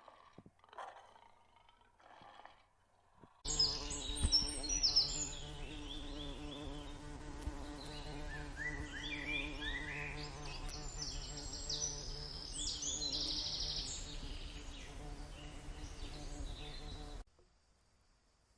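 Many small birds chirping in short, quick high calls over a steady low hum, starting abruptly a few seconds in and cutting off suddenly near the end.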